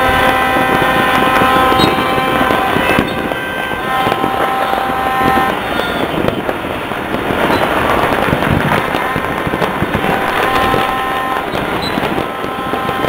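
A continuous din of fireworks and firecrackers going off all over the city, a dense crackling and popping with no pause. Steady pitched tones sound over it, coming and going for a second or two at a time.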